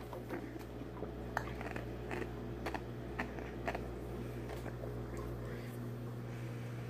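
Quiet room tone with a steady low hum, broken by scattered faint clicks and taps.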